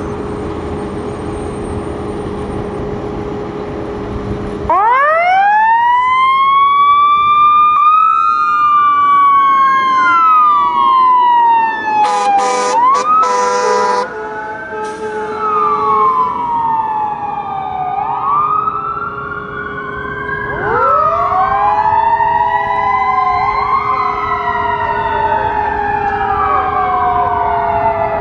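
Emergency sirens of a fire engine and an ambulance heading out on a call. After a steady rumble, a siren winds up about five seconds in and wails up and down. Short horn blasts sound around twelve to fourteen seconds, then a second siren joins and the two wails overlap.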